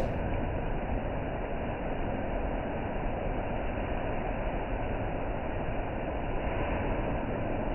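Steady rushing background noise of a commercial kitchen, with no distinct events.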